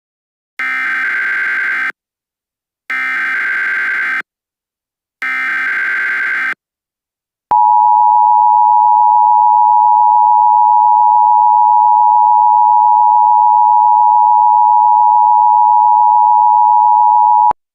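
Emergency Alert System header: three short bursts of SAME digital data tones, each about a second and a half long with short gaps between them. Then the EAS two-tone attention signal, a steady tone held for about ten seconds that cuts off sharply.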